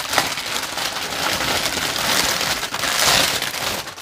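Plastic bags of diamond painting drills crinkling and rustling continuously as they are handled, loudest about three seconds in.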